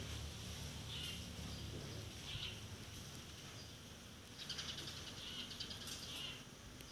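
A small bird chirping in short high calls every second or two, with a fast rattling trill about four and a half seconds in, over a low background rumble.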